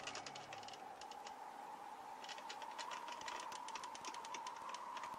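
Faint crackle of old film surface noise: scattered, irregular clicks over a faint steady tone.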